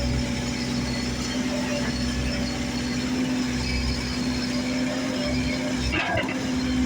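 Steady mechanical running noise with a constant low hum, and a brief sharp sweeping sound about six seconds in.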